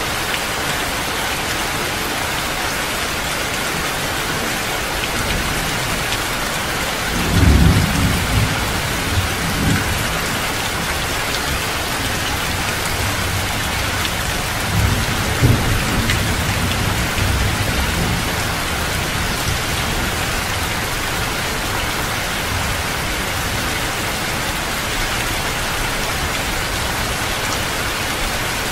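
Heavy rain falling steadily, with low rolls of thunder about seven seconds in and again around fifteen seconds in.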